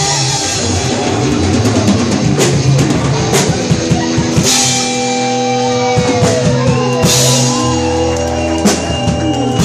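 Rock band playing an instrumental passage: guitar holding sustained notes with a few bends, over a drum kit with several cymbal crashes.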